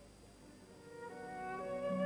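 Instrumental title music fading in: held, overlapping notes swell up from faint tape hiss about halfway through.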